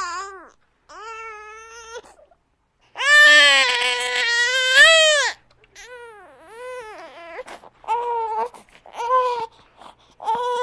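Infant crying in bouts of high-pitched wails: a short cry, then a long, loud wail about three seconds in, followed by shorter, quieter broken cries and several brief cries near the end.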